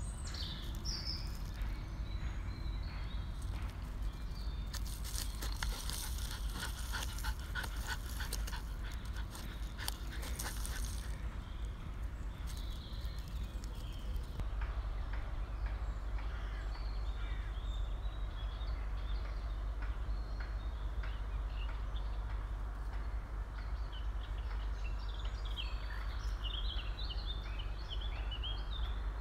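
Outdoor ambience: a steady low wind rumble on the phone's microphone, with several seconds of rustling and crackling early on and scattered bird chirps, which grow into a flurry of chirping near the end.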